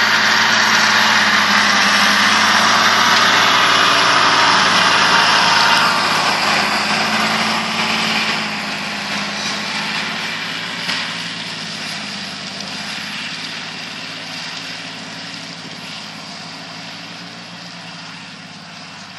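John Deere tractor's diesel engine running under load as it pulls a disc harrow through stubble. It passes close by, then draws away, fading steadily from about six seconds in.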